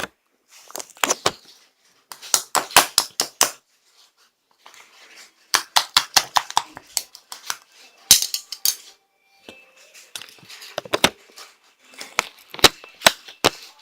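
Irregular clusters of sharp clicks and taps, coming in bursts with short pauses between them.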